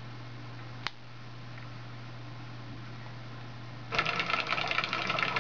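Steady low hum and faint hiss while the soundtrack is silent during fast-forward, with a single sharp click just under a second in. About four seconds in, the nature film's soundtrack resumes loudly through the TV speakers as a dense, rapid crackling.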